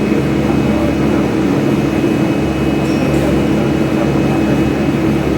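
Steady machinery hum in a welding workshop: a loud, constant drone made of several low tones over a noisy rush, with no change in speed or load.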